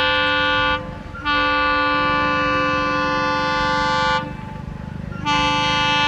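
WDG-3A Alco diesel locomotive horn sounding in long, continuous blasts, broken by two short pauses: one about a second in and one about four seconds in. A low engine rumble runs underneath.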